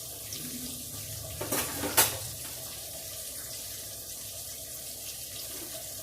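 Steady kitchen hiss, broken by two sharp knocks about one and a half and two seconds in, the second louder, as of vessel and utensils knocking.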